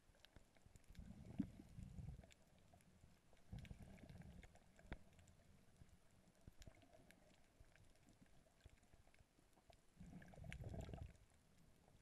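Near silence underwater, with a few faint, muffled low bumps and a few sharp clicks.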